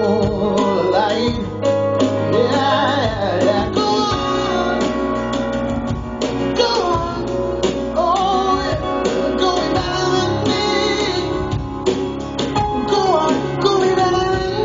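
Live acoustic rock song: a male voice singing long, sustained lines over strummed acoustic guitar and bass guitar.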